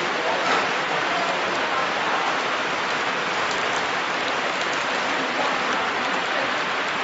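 Horizontal flow wrap machine running, a steady even hiss-like noise, with light crinkling of the plastic-wrapped packs being handled.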